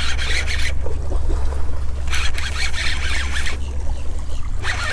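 Bass being reeled in on a baitcasting reel: stretches of gritty reel cranking, with the fish splashing at the surface near the end, over a steady low rumble.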